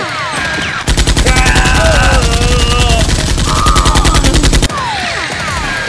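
Rapid automatic gunfire sound effect, about a dozen shots a second, running nearly four seconds and stopping abruptly. Before and after it come quick falling zaps of laser-blaster sound effects.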